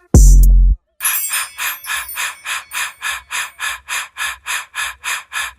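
A hip-hop beat with heavy bass hits stops under a second in. After a short gap, a steady hissing pulse starts, repeating about four times a second like a shaker.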